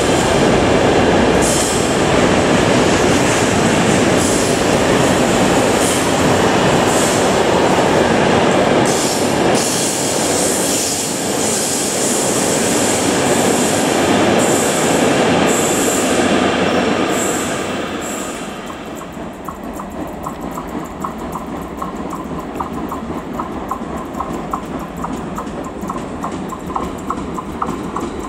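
Freight train of intermodal wagons rolling past on curved track: a loud, steady wheel-on-rail rumble with short high flange squeals. About 18 s in the rumble drops to a quieter sound with a fast, regular clicking.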